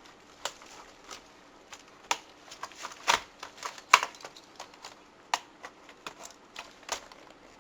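Irregular clicks and taps of hard plastic laptop parts and small tools being handled during disassembly, with the sharpest clicks about three and four seconds in.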